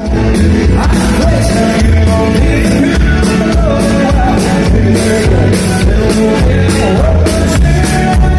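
Live band playing an upbeat rock-style song: a steady drum-kit beat over bass and guitar, with a singing voice.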